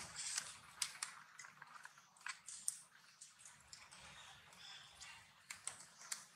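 Macaque chewing and biting food: faint, irregular crunchy clicks, several a second.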